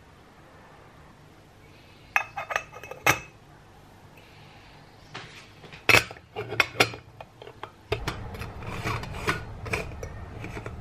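Stainless steel moka pot being filled and assembled: a spoon clinks against the metal filter basket, the basket clinks into the base, then from about eight seconds in the threaded top chamber rubs and grates as it is screwed onto the base.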